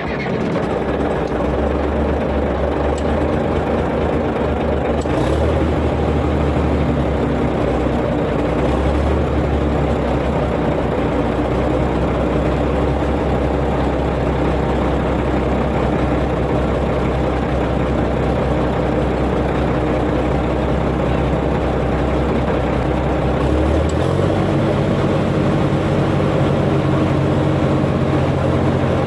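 Komatsu bulldozer's diesel engine running just after being started, with a deep, steady note. About 24 seconds in, the engine speed rises to a higher, steady note.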